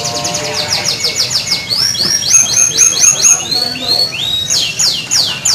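Canary singing: fast runs of repeated sweeping high notes, changing from one phrase to the next and growing louder after about two seconds.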